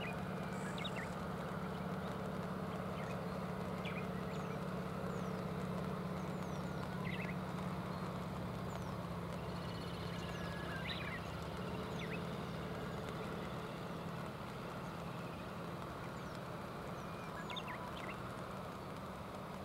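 Steady rushing of river water with a low steady hum beneath it, and a few brief high chirps here and there.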